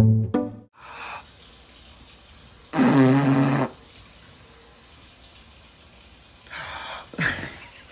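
Plucked string music cuts off, then a dog lying on its back gives a drawn-out groan of about a second, and near the end two breathy snorts.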